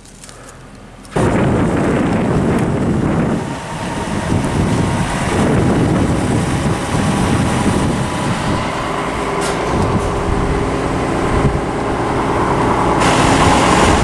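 John Deere 7420 tractor's diesel engine running as it pulls a loaded-down dump wagon into position, starting abruptly about a second in, with wind rumbling on the microphone.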